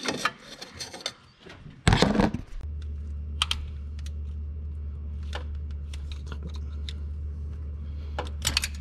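Small clicks and taps of hands and a tool working at a plastic sensor connector in a car's engine bay, with one louder knock about two seconds in. A steady low hum starts just after the knock and keeps on.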